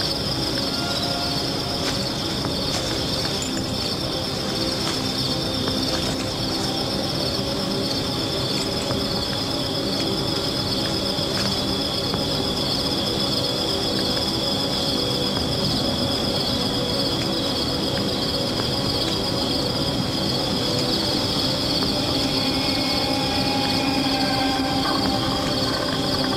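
Crickets chirping in a steady, continuous chorus over a low, even drone.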